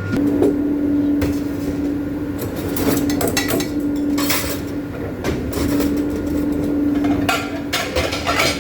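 Dishes, pots and cutlery clattering and knocking together while dishes are being washed by hand, with many sharp clinks and bangs. Under them runs a steady machine hum that drops out briefly a few times.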